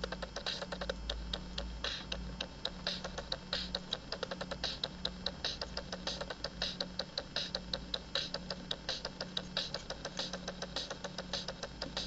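Circuit-bent toy drum machine glitching: a rapid, uneven stream of sharp electronic clicks and ticks over a low buzz that pulses on and off about every two-thirds of a second.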